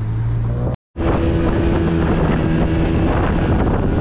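A small boat's outboard motor running steadily at speed, with wind on the microphone and water rushing and splashing past the hull. Under a second in, a brief silent gap breaks off a low steady hum before the motor sound begins.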